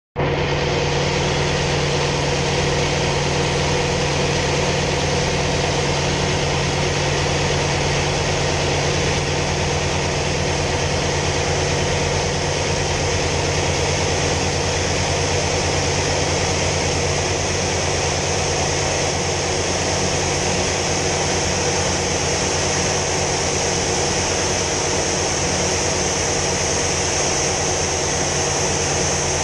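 Hawker Sea Fury T20's Bristol Centaurus radial engine running steadily in flight, heard from inside the cockpit as a constant loud drone mixed with a rushing hiss.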